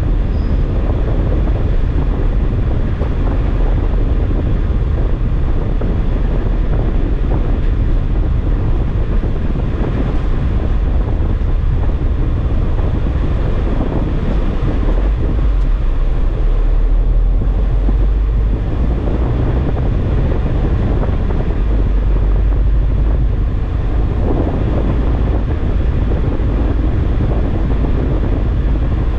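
Steady low rumble of a car driving, heard from inside its cabin: engine and tyre noise with wind buffeting the microphone.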